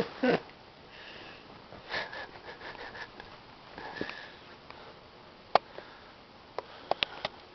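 Beagle sniffing in short puffs at the bedding, with a few sharp clicks in the second half.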